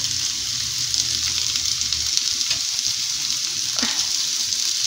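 Boiled potato chunks sizzling steadily in melted butter in a hot frying pan.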